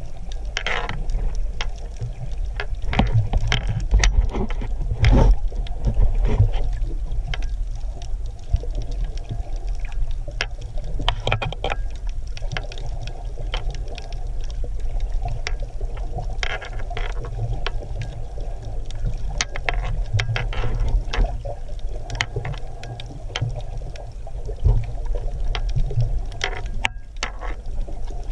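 Shallow seawater heard with the microphone underwater: a steady low rumble of moving water with scattered clicks and crackles.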